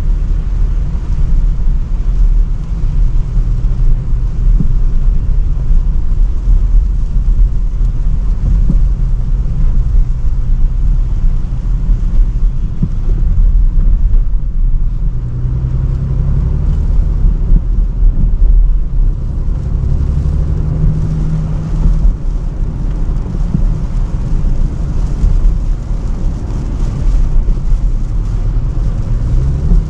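Range Rover Sport on the move: a heavy low road and engine rumble with a steady hiss over it. The engine note rises and falls a few times as the car speeds up and eases off, most clearly past the middle and near the end.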